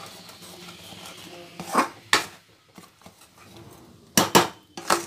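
Metal ladle stirring gram flour into thick boiling sugar syrup in an aluminium kadai, with a quiet bubbling background and several sharp clanks of the ladle against the pan, a pair about two seconds in and a cluster about four seconds in.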